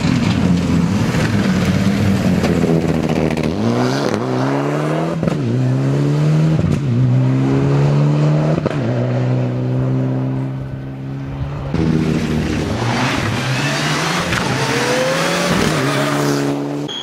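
Mitsubishi Lancer Evolution X rally car's turbocharged four-cylinder engine accelerating hard, its revs climbing and dropping back several times as it shifts up.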